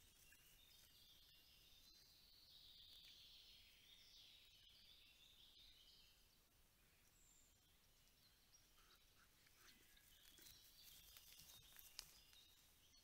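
Faint birdsong in woodland, with several short clicks near the end, the sharpest about twelve seconds in.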